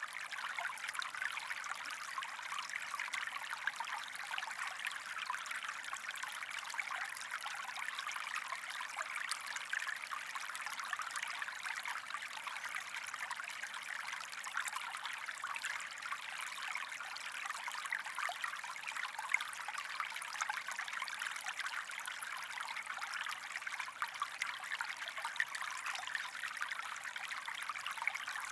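A small stream of water running and trickling steadily, a continuous bright babble with fine splashing detail.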